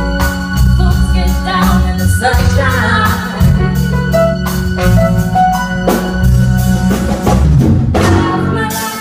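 A live band playing a song: organ chords held over a heavy bass and a steady drum beat, with a voice singing over it.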